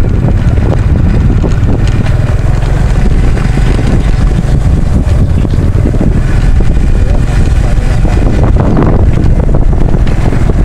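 Heavy wind buffeting a helmet-mounted action-camera microphone: a loud, steady low rumble.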